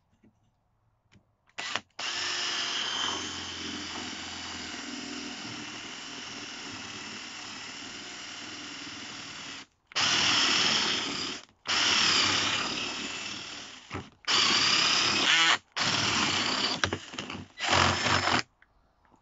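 Cordless drill with a spade bit boring into a softwood batten. After a brief blip it runs steadily for about eight seconds. It then goes in five shorter, louder runs with short stops between them, its pitch wavering under load.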